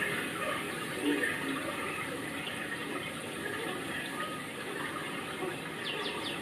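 Continuous rushing noise, like running water, at a steady level, with a quick run of high chirps near the end.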